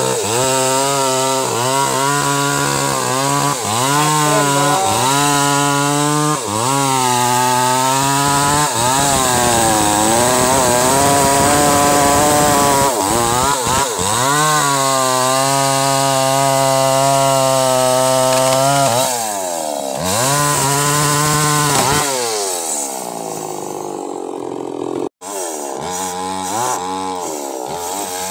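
Two-stroke chainsaw cutting through mahogany logs, its engine note repeatedly sagging under load in the cut and climbing back, with long stretches held at steady full throttle. Near the end it winds down, then after a sudden break comes back with short revs.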